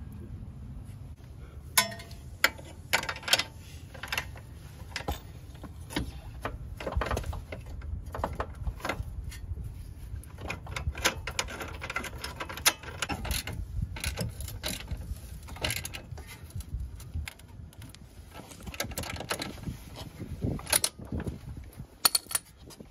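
Hand ratchet clicking, with metal clinks of tool and bolt, as the lower shock bolt is fitted and tightened through a coilover's bottom mount on the lower control arm. The clicks come irregularly, in short runs.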